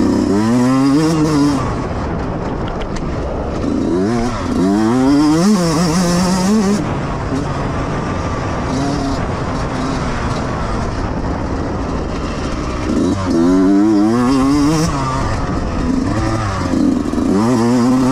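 Yamaha YZ125X 125cc two-stroke dirt bike engine under hard acceleration on a trail. It revs up in four surges, the pitch climbing and then dropping back at each gear change, and runs steadier between the surges.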